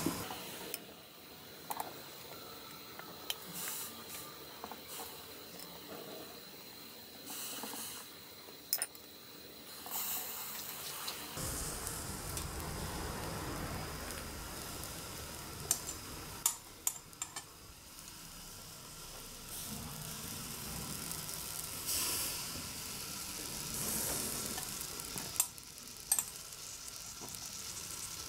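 Scored chestnuts roasting on a wire grill over charcoal: a soft, steady sizzle and hiss with scattered crackles. Occasional sharp clicks come from metal tongs setting and turning the chestnuts on the grill mesh.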